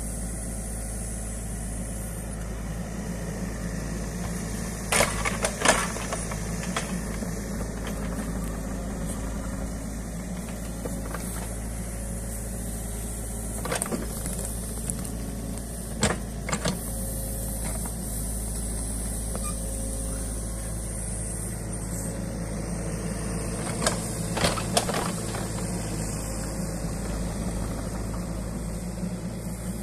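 New Holland Kobelco E50.2 mini excavator's diesel engine running steadily while the machine digs. A few sharp clunks and knocks come from the bucket and arm, in pairs at about five seconds in, again around sixteen seconds, and near twenty-four seconds, with a single one in between.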